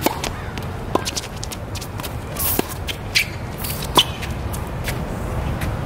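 Tennis rally on a hard court: the crack of a serve, then sharp racket-on-ball hits about a second or more apart, the loudest about four seconds in, with tennis shoes scuffing on the court between them over a steady low rumble.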